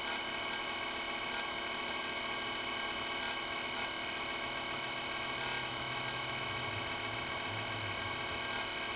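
Sierra stove's battery-powered blower fan running steadily on its low setting: a constant whirring whine with a strong high hiss.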